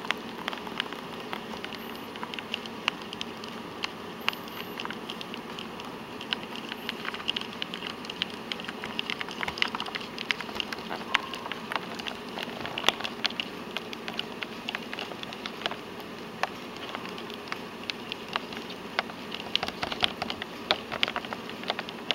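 Many light, irregular clicks and taps, several a second and some in quick clusters, from a blue crayfish's legs and claws against its small plastic bucket, over a steady background hum.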